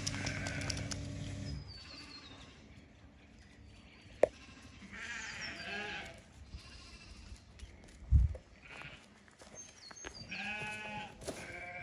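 Livestock bleating: a call about five seconds in and a longer, wavering call near the end. A low steady hum stops in the first couple of seconds, with a sharp click and a dull thump in between.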